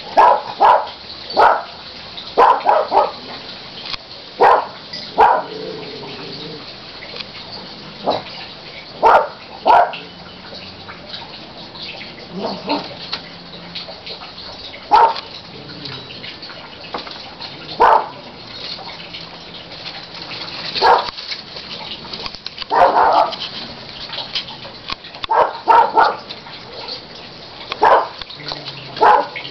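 A dog barking over and over, in single barks and quick pairs or threes, every one to three seconds.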